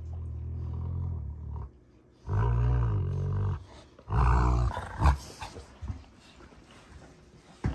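Rottweilers growling while play-fighting: three long, low growls, the last one about four seconds in the loudest, then a short sharp sound just after it.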